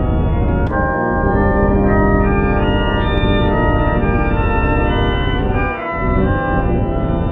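Loud, dense organ-like electronic tones held as sustained chords that shift pitch every second or two, with brief dips about a second in and again near six seconds.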